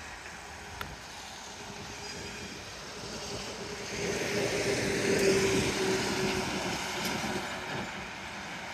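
Road traffic passing: cars and a heavy dump truck driving by, with tyre and engine noise that swells from about four seconds in and carries a steady hum.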